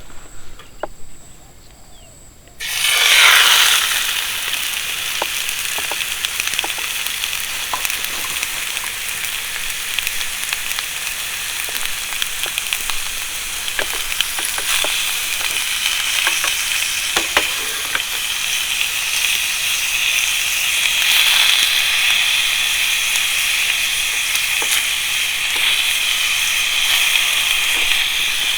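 Food dropped into a hot pan of oil about two and a half seconds in: a sudden loud hiss that settles into steady frying and sizzling, with scattered crackles and pops.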